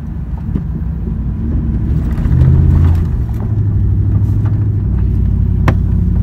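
Car engine running with a steady low hum, rising in revs and loudness for a moment about two and a half seconds in.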